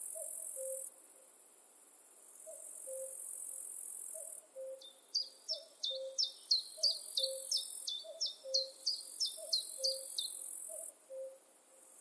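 A common cuckoo calls its two-note 'cu-ckoo' over and over, a little more than once a second. A high, insect-like buzz comes and goes in bouts of about two seconds. From about four seconds in, a songbird sings a run of about fourteen sharp, quickly falling notes, and these are the loudest sound.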